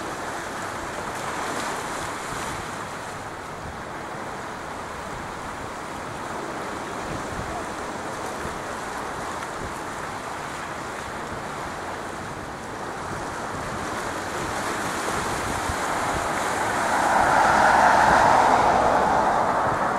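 Twin rear-mounted Williams FJ44 turbofans of a Cessna CitationJet CJ3+ running at taxi power: a steady jet rush that swells loudest near the end as the jet turns its tail toward the listener, then eases.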